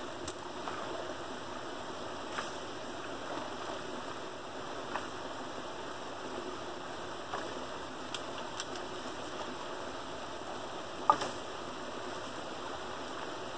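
Water running steadily through a beaver dam, with scattered short sharp cracks and knocks of sticks being pulled from the dam; the loudest comes a couple of seconds before the end.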